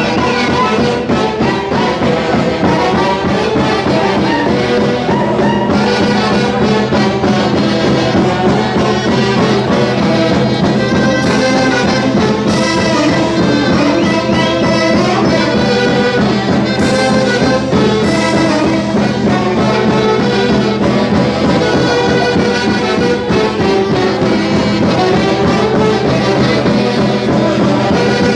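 Peruvian folk orchestra playing a Santiago-festival tune, a loud wind section carrying the melody over a steady beat.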